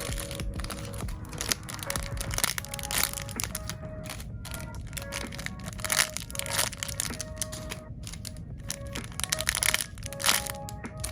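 Crinkly plastic packaging crackling as bagged mini squishy toys are squeezed and handled, in irregular bursts, over light background music with a simple melody of short notes.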